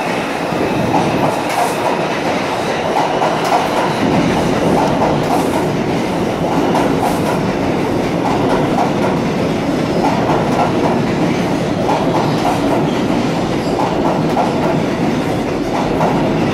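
New York City subway train running past the platform close by: a steady, loud noise of steel wheels on the rails.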